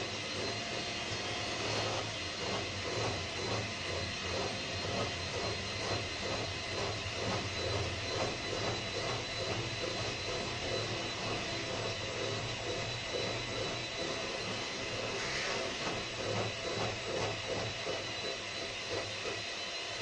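Electric mixer running steadily, its beaters whisking cake batter in a bowl.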